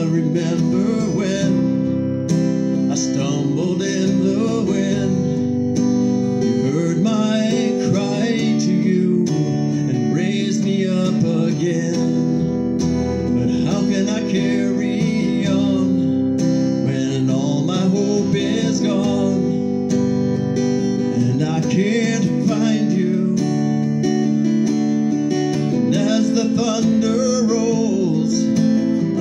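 Acoustic guitar strummed steadily under a man's singing voice, in a solo performance of a slow worship song.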